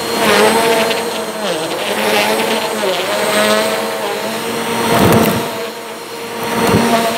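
Bissell upright vacuum cleaner running on a rug, a steady motor whine whose pitch dips briefly a couple of times as it is pushed along. Two knocks come in the second half.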